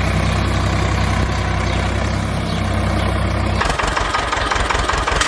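Tractor engine idling steadily with a deep, even throb. About three and a half seconds in, the throb stops and a rattling, clattering mechanical noise takes over.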